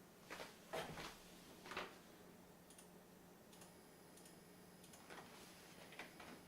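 Near silence: a few faint, irregular clicks in the first two seconds over a low steady hum.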